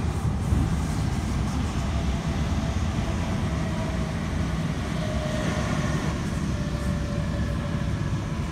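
Steady rumble of a moving passenger train heard from inside the carriage: wheels running on the track, with faint thin whining tones coming and going in the second half.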